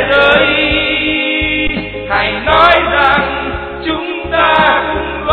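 Choir singing a song in Vietnamese, in several sung phrases with short breaks between them.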